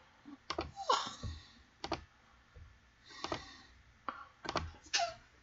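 A computer mouse and keyboard clicking, a handful of scattered, irregular clicks and light knocks, with a brief faint noise between them about a second in and again near the end.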